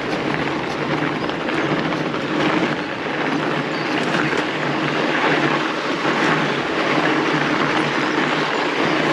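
Steady rolling rumble and rushing of a fat bike riding downhill on a packed-snow trail: wide tyres running over the snow and the bike's rattle, picked up close by a handlebar-mounted camera.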